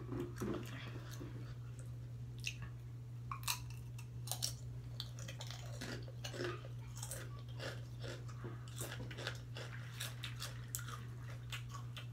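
Someone chewing crunchy tortilla chips: an irregular run of crisp crunches, one after another.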